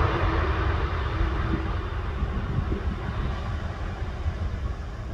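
Jet engines of an Airbus A330 freighter on its landing rollout, a broad steady rumble that slowly fades, with a low fluttering rumble of wind on the microphone underneath.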